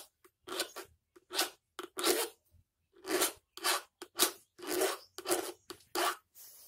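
A hand sharpening tool drawn across the cutter teeth of a Kuban petrol chainsaw's chain, about a dozen short grating strokes at roughly two a second. The teeth are being dressed back after being damaged by cutting into hidden metal.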